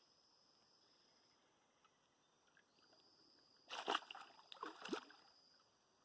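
A short flurry of water splashing about four seconds in, two or three quick splashes over about a second. Under it runs a faint, steady, high insect drone.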